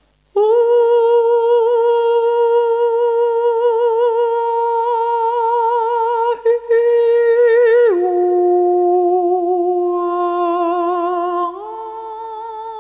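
A mezzo-soprano singing long held vowels with a wide vibrato. She holds a B-flat and drops to an F about eight seconds in, then rises to an A near the end. There is a brief break a little past six seconds.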